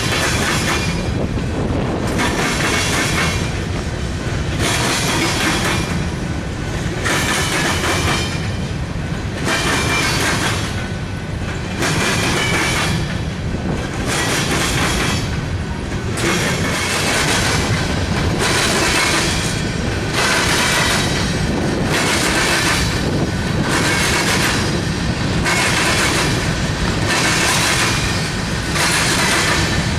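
Freight train cars rolling past over a steady low rumble. The high wheel-and-rail noise swells and fades in a regular rhythm, about once every second and a half, as each car goes by.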